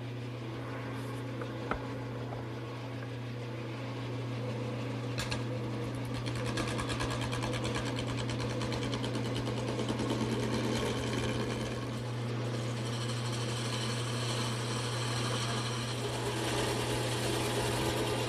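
Electric drill running steadily with a 7/8-inch Forstner bit boring through a wooden mallet-head blank. The cutting noise grows rougher and denser from about six seconds in, over the motor's constant hum.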